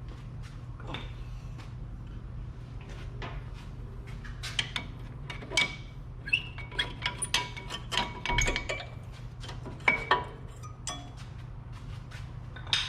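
Metal brake parts and tools clinking and knocking as they are handled, irregular sharp clicks with some short metallic rings, busier from about four seconds in, over a steady low hum.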